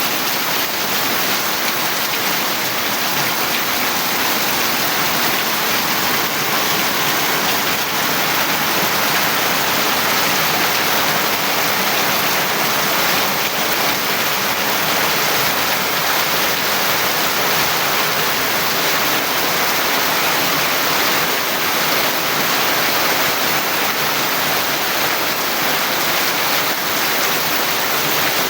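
Steady heavy rain, an even continuous hiss of falling water.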